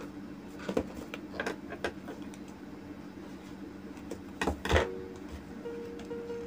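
Cardboard smartphone box being handled on a tabletop: a few light taps and scrapes, then a louder knock about four and a half seconds in as the box is laid down flat on the table.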